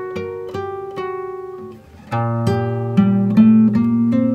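Background music on acoustic guitar: single plucked notes, then fuller, louder strummed chords from about two seconds in.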